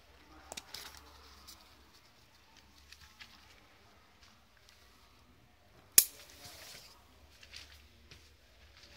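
Nylon fabric of a Vango Palermo 800 inflatable tent rustling as its plastic buckles and toggle clips are handled, with scattered light clicks. One sharp, loud click about six seconds in.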